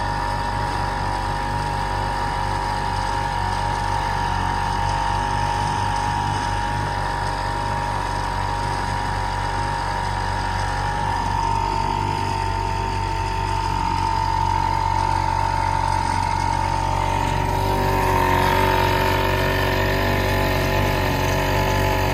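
1948 Evinrude Sportsman 1.5 hp two-stroke outboard motor running steadily under way with a steady hum. It grows a little louder and brighter about three-quarters of the way through.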